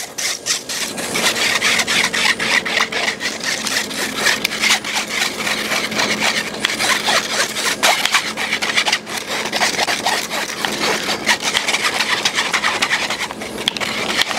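Wire whisk scraping rapidly back and forth against a fine-mesh sieve, forcing thick béchamel sauce through the mesh into a stainless steel bowl: a continuous rasping scrub made of many quick strokes.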